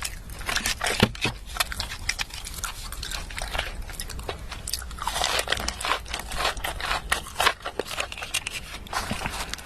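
Close-miked biting and chewing of crunchy food: a dense, irregular run of crunches and crackles.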